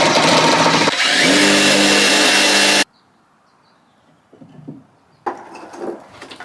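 Power drill running at full speed for just under 3 seconds, its pitch shifting about a second in, then stopping abruptly. After it stops, faint knocks and handling sounds, with a sharper knock near the end.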